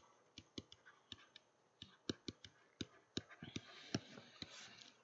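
Faint, irregular clicks and taps of a digital pen on a tablet while handwriting is written, with a light scratching near the end.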